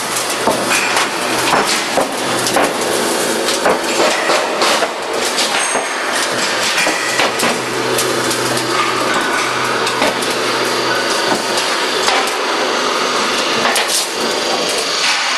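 Glazed-tile roll forming machine running, with colour-coated steel sheet being pressed through its forming rollers. A steady low hum under dense, irregular knocks and clatter; the hum drops out about twelve seconds in.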